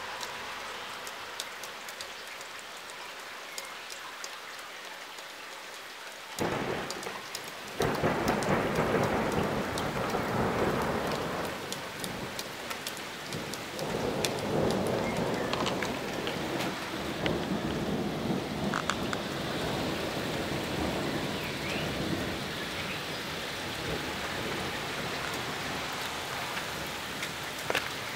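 Thunderstorm: steady rain falling throughout, then about six seconds in a clap of thunder breaks into a long rolling rumble that swells again halfway through and slowly dies away under the rain.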